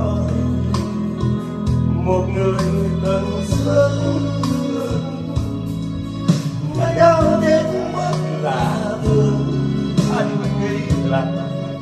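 Vietnamese pop ballad with guitar, played back through a karaoke speaker.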